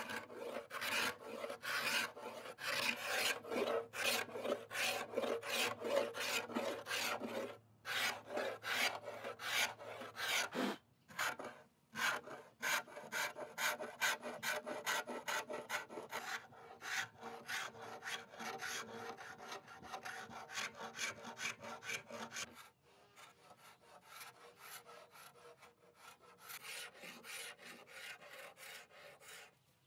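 Hand-held paint scraper drawn in quick repeated strokes across a wooden cabinet top, scraping off the old finish. The strokes turn quieter and sparser for the last several seconds.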